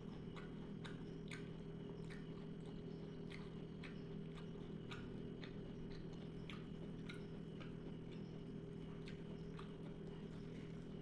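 Person chewing a mouthful of rice and cassava leaves with wet smacking clicks, about two a second, over a steady low electrical hum.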